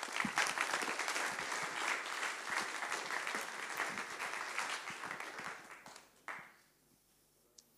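Audience applauding, starting at once, dying away after about six seconds.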